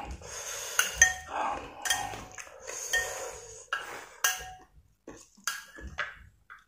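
Metal spoon clinking and scraping against a ceramic soup bowl: a run of separate ringing clinks, sparser near the end.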